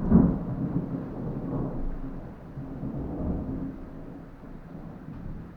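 Thunder: a sudden loud clap at the start, then a low rolling rumble that swells twice more and fades away.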